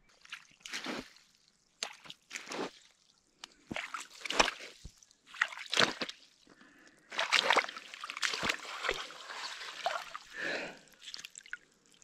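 Bare feet wading through shallow icy water over lake ice: a series of sloshing splashes, about one per step, turning into near-continuous sloshing in the second half.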